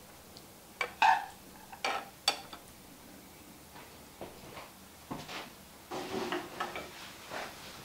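Serving spoon clinking and scraping against a saucepan and a china plate as rice is dished out, with several sharp clinks in the first two and a half seconds. Near the end comes softer knocking as the saucepan is set back on the electric stove.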